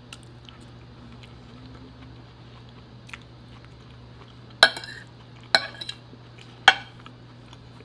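Metal fork clinking against a ceramic plate: three sharp clicks about a second apart in the second half, with a few faint taps before them.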